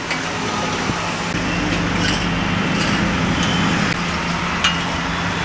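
Steady background noise of a roadside street-food stall: an even hiss over a constant low hum, with a couple of faint clicks.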